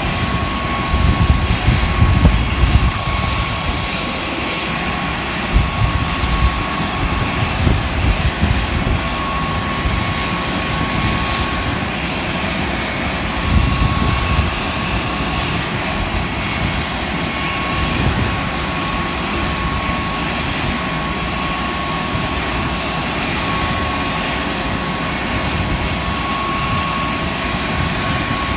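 Panavia Tornado GR4's twin RB199 turbofan engines running steadily, with a thin constant whine above the jet noise. Low, gusty rumbles come and go several times.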